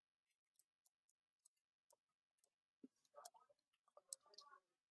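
Near silence with faint, scattered computer mouse clicks, more of them in the second half.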